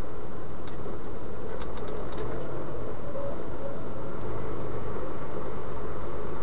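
Steady engine and road noise of a vehicle driving at night, picked up by a dash camera in the cab. A few light clicks come about two seconds in.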